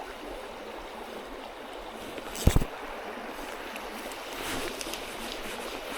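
Creek water running steadily, with a single sharp thump about two and a half seconds in.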